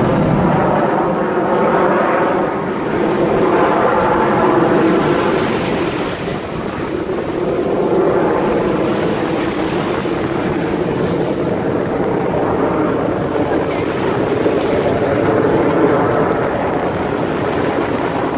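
Jet engine noise from display jets flying a smoke-trailing formation manoeuvre overhead: a steady rumble that swells and eases over several seconds.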